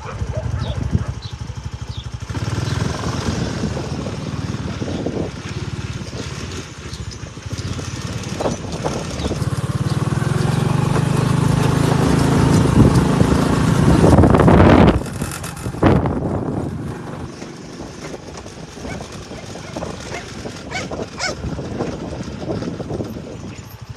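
A small motor vehicle's engine running as it drives along. It builds louder towards about fifteen seconds in, then drops back to a lower, steadier running.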